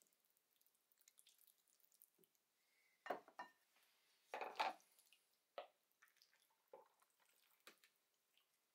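Faint, short wet squishes and drips from sliced meat being worked in cooking oil for a marinade, about six in all, starting about three seconds in.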